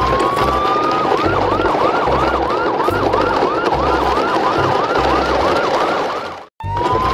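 Electronic siren: one long rising wail, then a rapid yelp of repeated rising chirps, about three a second, over low thuds. About six and a half seconds in it cuts out abruptly and starts again with the rising wail, as a looped track does.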